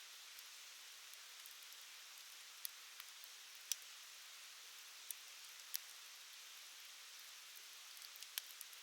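Wood fire crackling: a faint steady hiss with scattered sharp pops, several coming close together near the end.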